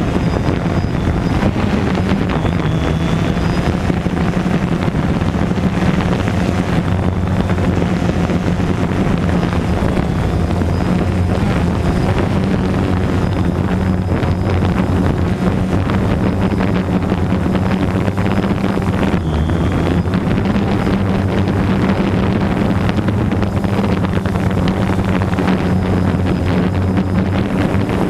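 DJI Phantom 2 quadcopter's motors and propellers running in steady flight, a loud, even hum with wind buffeting the microphone of the GoPro Hero 3+ slung beneath it.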